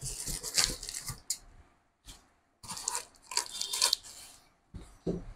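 Packaging rustling and scraping in two spells as a new printer is lifted out of its cardboard box, with a couple of dull knocks near the end.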